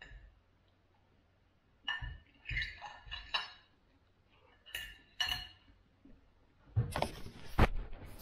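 A metal fork clinking against a ceramic plate in two bunches of strikes, the plate ringing briefly after each. Near the end come louder rustling and knocks of the camera being handled.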